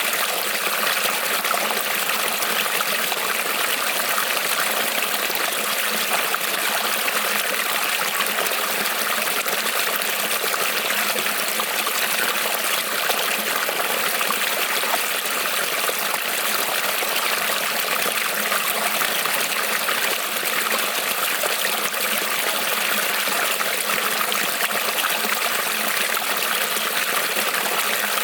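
A creek's water rippling and trickling over stones, steady and unbroken.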